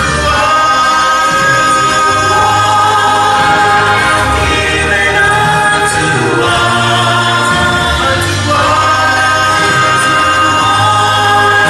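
Choir singing sustained chords over a steady bass accompaniment, in a gospel style.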